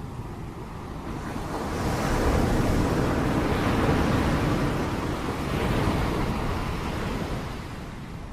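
Heavy rain noise that swells about a second in, holds loud for several seconds, then eases back down near the end.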